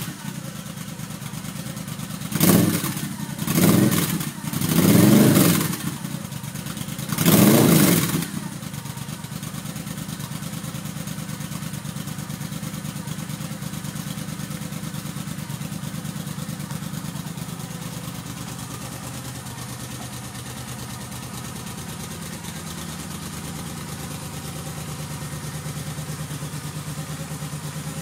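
2011 Moto Guzzi V7 Classic's air-cooled transverse V-twin, breathing through reverse-cone Mistral mufflers joined by a crossover pipe, idling just after start-up. The throttle is blipped four times in the first eight seconds, each rev rising and falling quickly, then the engine settles into a steady idle.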